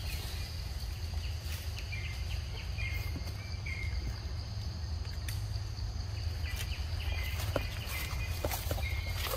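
Tropical forest ambience: a steady high insect drone, runs of short repeated chirps from a small bird or insect that pause for a couple of seconds around the middle, and a steady low rumble under it all, with a few faint clicks.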